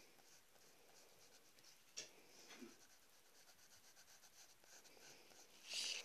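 Faint scratching of a drawing tool on paper, with a sharp tick about two seconds in and a louder, longer stroke near the end.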